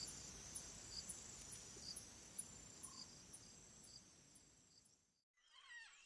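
Faint insect chirping: a high steady trill with short, regular chirps about twice a second, fading out about four to five seconds in. A few faint sliding whistles come in near the end.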